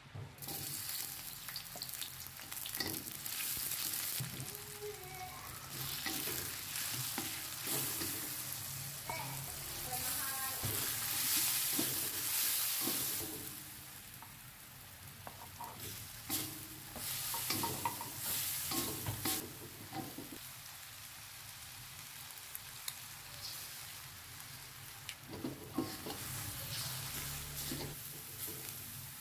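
Food sizzling in hot oil in a steel wok while a wooden spatula stirs and scrapes it. Short scrapes and knocks of the spatula against the pan come through the sizzle.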